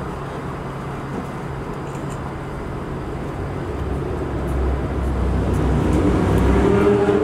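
Steady city traffic noise, with a vehicle's rumble growing steadily louder over the second half as it draws near.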